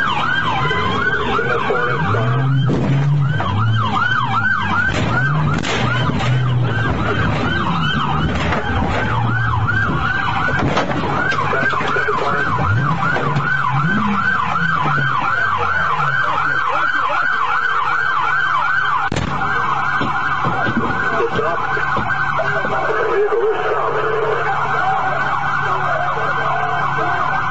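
Police car siren in fast yelp mode, rapid rising-and-falling sweeps several times a second without a break. A few sharp knocks sound in the first few seconds and one more about two-thirds of the way through.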